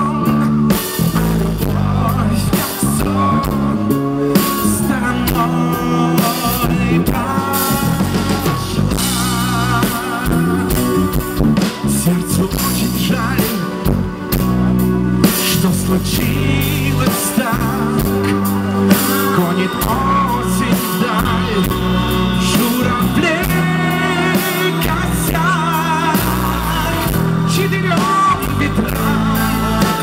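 Live pop-rock band playing a song through a stage PA: electric guitar, bass guitar and keyboards over a drum kit, continuous and loud.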